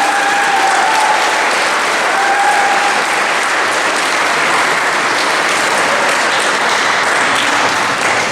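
Audience applauding steadily, sustained clapping from a roomful of people.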